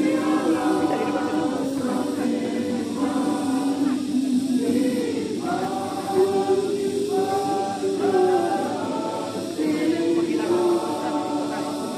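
A group of voices singing a slow hymn together, the notes held long, with short breaks between phrases.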